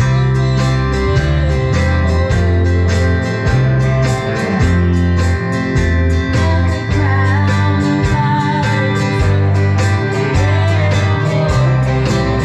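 A small band playing a country-style song live: electric guitar over a moving bass line, with a steady beat on an electronic drum kit.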